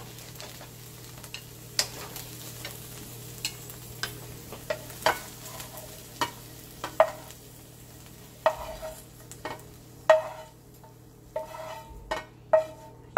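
Wooden spatula scraping and knocking against a nonstick frying pan as fried okra is pushed out onto a plate, over a faint sizzle of hot oil. The knocks come irregularly, every half second to a second, some with a short ring from the pan.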